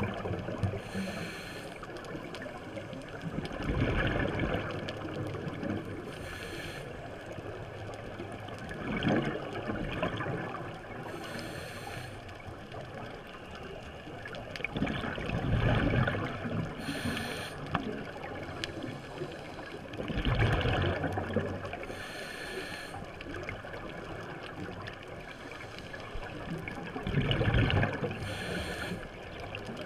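Scuba diver breathing through a regulator underwater: a hissing inhalation about every five to six seconds, each followed a few seconds later by a louder rush of exhaled bubbles.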